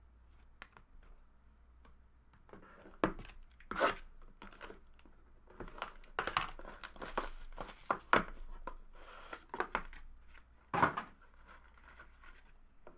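Trading-card packaging being torn open and crinkled by hand, in irregular bursts.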